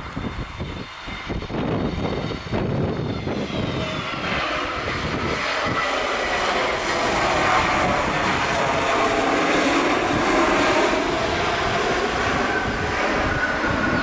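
Airliner's engines growing louder as the aircraft comes in to land and passes close by, the whine sliding down in pitch as it goes past. Wind buffets the microphone in the first few seconds.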